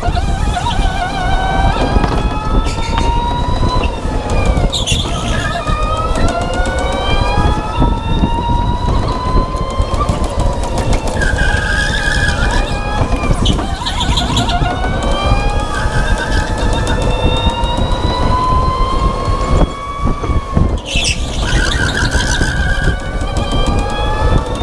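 Electric go-kart motor whining, rising in pitch for several seconds as the kart accelerates and falling each time it slows for a corner, about three times, over tyre and track noise. Short squeals of the tyres sliding come in the middle and near the end.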